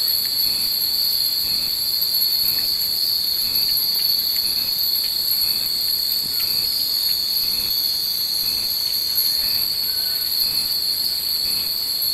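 Many Japanese wind chimes (fūrin) tinkling irregularly in the breeze, over a steady, high-pitched insect drone.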